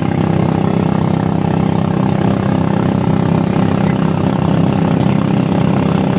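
Motorboat engine running steadily, a loud low drone with many evenly spaced overtones, pulling the floating bamboo cottage raft through the water.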